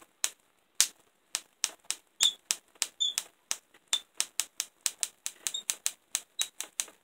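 Van de Graaff generator sparking: rapid, irregular sharp snaps, about five a second, as small electrical discharges jump from its metal dome to a powder-covered paint can lid below.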